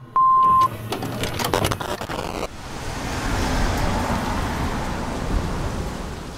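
A short high beep, about half a second long, then crackling tape-static glitches that cut off sharply into heavy rain with the low rumble of a Jeep's engine.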